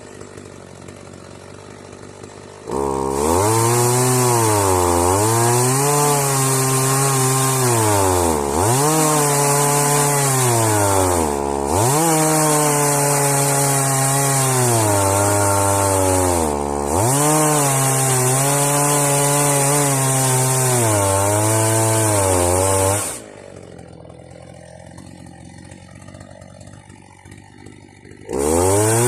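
Two-stroke chainsaw running at high revs while ripping a log in an Alaskan chainsaw mill. The engine pitch repeatedly sags and recovers under the load of the cut. It drops to a much quieter level at the start and again for about five seconds after 23 s, then revs back up near the end.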